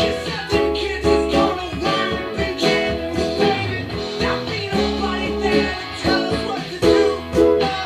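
Electric guitar playing a melody over a backing track with drums and bass.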